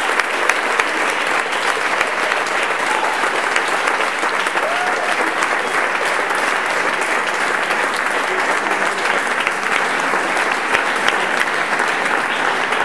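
Audience applauding: many hands clapping together at a steady level.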